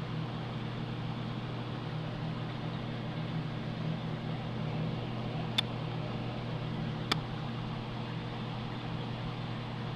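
Steady low electrical hum with a faint hiss, from running aquarium pumps. Two sharp clicks come about five and a half and seven seconds in.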